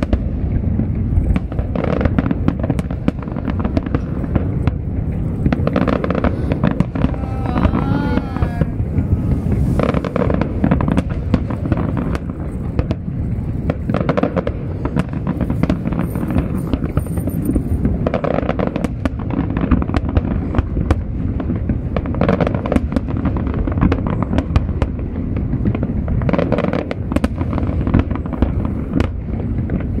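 Fireworks display: a continuous barrage of booms and crackles, with louder bursts every few seconds.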